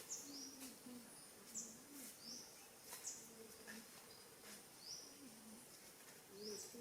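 Faint bird calls: short, high rising chirps repeat about once or twice a second over a quieter series of low, wavering calls.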